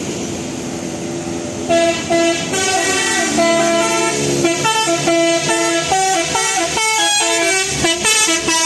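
Bus 'telolet' musical horn playing a quick tune of short stepped notes, several horn tones sounding together. The tune starts about two seconds in, over a low rumble.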